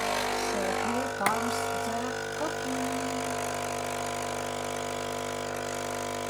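Espresso machine's pump humming steadily as coffee is dispensed into a glass of frothed milk, with a sharp click about a second in.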